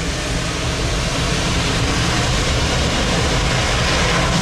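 Jet engines of a Singapore Airlines Boeing 787 running as the airliner moves close past on the ground: a steady rush of noise over a deep rumble, growing slightly louder toward the end.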